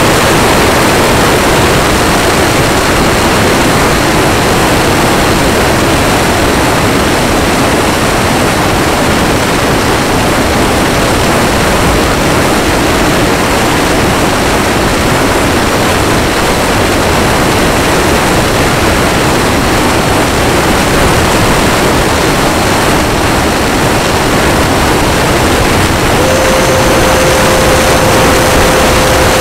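Loud, steady rush of wind and fan noise from an electric RC Mirage 2000 model jet in flight, heard from a camera riding on the airframe. A steady whine joins in near the end.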